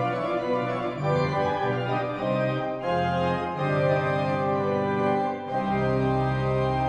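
Organ music: sustained chords that shift every second or so over a held bass note.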